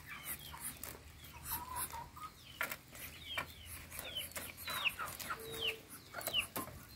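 Chickens calling: a string of short, high peeps that fall in pitch, coming about twice a second from about three seconds in, with a few scattered clicks.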